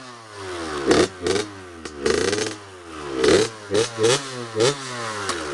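Small dirt bike engine revved in a string of throttle blips as the bike moves off, the pitch rising sharply with each twist of the throttle and falling back between, about seven times.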